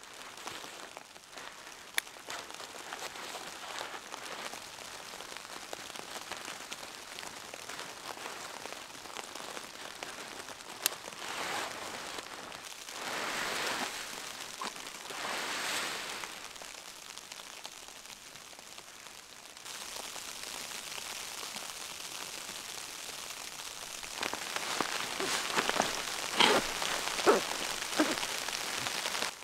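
Heavy snowfall pattering steadily on tent fabric and a rain jacket, a rain-like hiss that swells twice midway. Near the end come fabric rustling and a few sharp ticks as a guy line is pulled tight.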